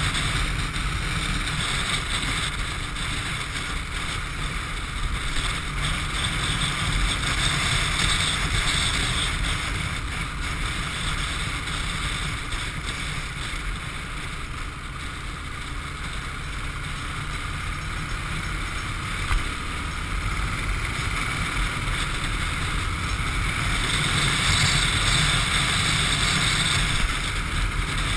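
Chopper-style motorcycle cruising at steady speed: a low engine rumble under wind rushing over the action camera's microphone, growing a little louder a few seconds before the end.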